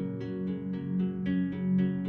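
Background instrumental music: a gentle plucked-string melody, notes struck about four times a second over held bass tones.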